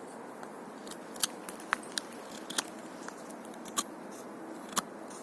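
Small money clip pocket knife carving into wood: a series of sharp, short clicks at irregular intervals as the blade bites in, about six strokes.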